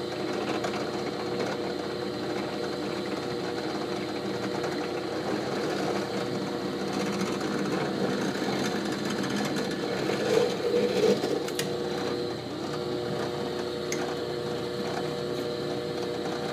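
Benchtop drill press motor running steadily while a small pilot bit is fed down into a block of wood, briefly louder about ten seconds in.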